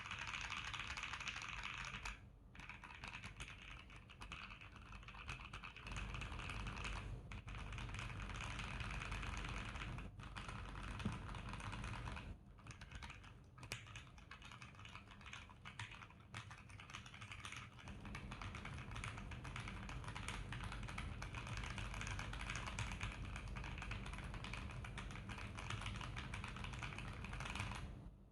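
Mechanical keyboard with Akko CS Starfish switches lubed with Krytox 205g0, in a DNA59 kit with Akko ASA-profile keycaps, being typed on steadily with a few short breaks.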